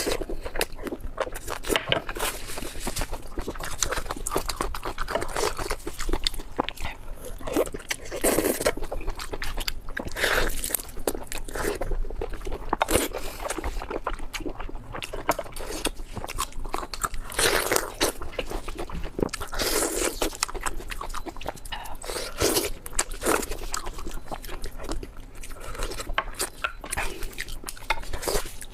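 Close-miked eating sounds: crunchy bites and steady chewing with irregular crackles, louder surges every second or two.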